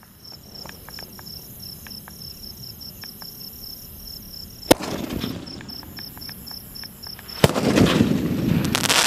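War Zone sky shot aerial firework cake firing: a few faint pops, then a sharp bang about halfway through and another near the end, each followed by crackling as the shells burst. Crickets chirp steadily in the background before the first bang.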